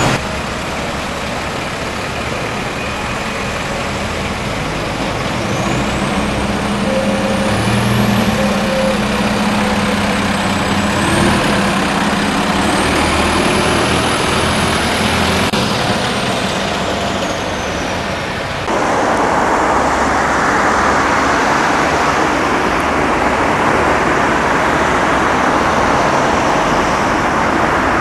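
Optare Solo single-deck bus pulling away from a stop, its engine running under a high-pitched whine that rises, dips and rises again as it gathers speed. About two-thirds of the way through the sound changes abruptly to a louder, steady traffic hiss.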